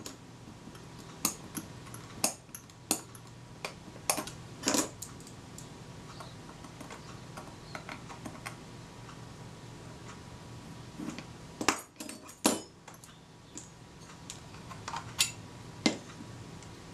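Scattered small, sharp clicks and taps of a jeweller's screwdriver and small metal parts against a Kodak Retina IIIc camera body while its front door is being taken off, in two bunches with a lull between, over a faint steady hum.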